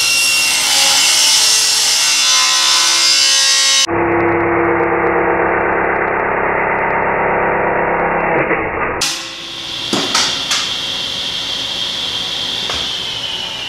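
Table saw running and cutting through a thin panel, in three spliced takes, so the sound changes abruptly twice. In the last take there are a couple of knocks, then the blade's high whine falls steadily as the saw coasts down after being switched off.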